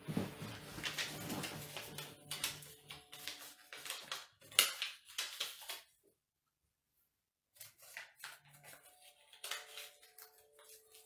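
Small folded paper slips being unfolded and handled, a run of short crackling rustles with a sharp crinkle about four and a half seconds in. The rustling stops for about a second and a half past the middle, then resumes more softly.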